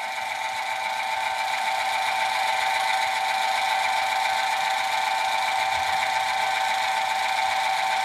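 AUMA electric valve actuator's motor and gearbox running under power as it drives the valve toward the closed position, a steady whine at an even pitch.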